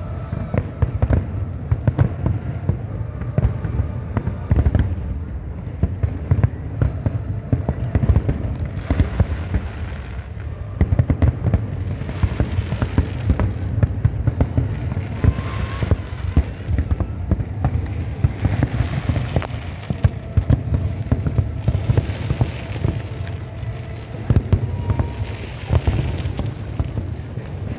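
Fireworks display: a dense, continuous barrage of rapid bangs and booms, with a swell of brighter crackle every few seconds from about a third of the way in.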